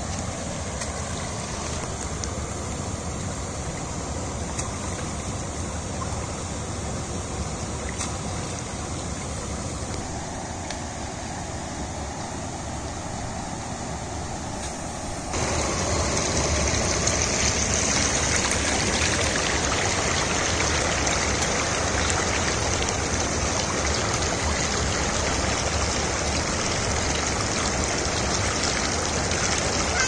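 Fast muddy irrigation-channel water rushing and pouring over a small concrete weir, a steady rushing noise. About halfway through it becomes suddenly louder and brighter.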